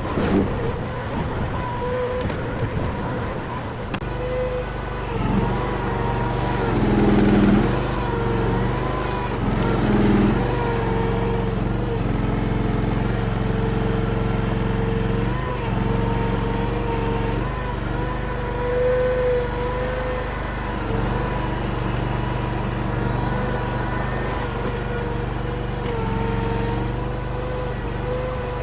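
Honda gasoline engine of a mini skid steer running steadily while the machine works a bucket into a dirt pile. Its note wavers and dips repeatedly as it comes under load, with two louder surges about a quarter and a third of the way in.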